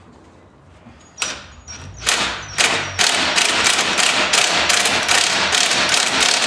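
Impact driver hammering a U-bolt nut tight on a golf cart's rear leaf spring through a swivel socket extension. It starts about two seconds in, after a couple of clicks as the socket goes onto the nut, and runs on as a loud rattle of quick pulses.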